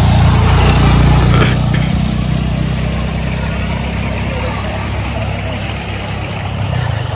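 Small motorcycle engine passing close by, loudest in the first second and a half, followed by a steady low engine hum.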